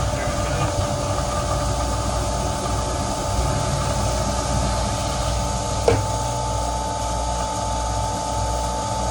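Well pump running and water rushing through the plumbing as the new pressure tank fills and pressure builds, a steady hum with a held tone. A single sharp pop about six seconds in, after which the tone steps higher.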